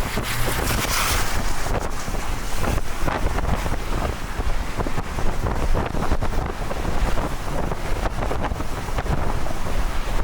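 Strong wind from a tornado at close range buffeting the microphone, with many sharp ticks and knocks mixed in.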